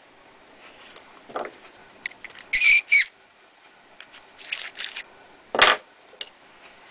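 Hand deburring tool scraping the mouth of a brass 30-30 rifle case in a few short, squeaky strokes, the brass ringing thinly, then a single sharp knock near the end.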